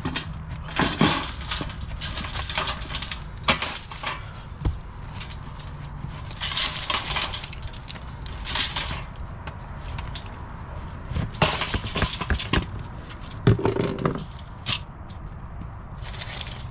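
Damp compost being pulled by hand out of the open hatch of an upturned compost tumbler and dropping in clumps into a galvanized steel tub: irregular bursts of rustling, scraping and thudding, each a second or so long, several seconds apart.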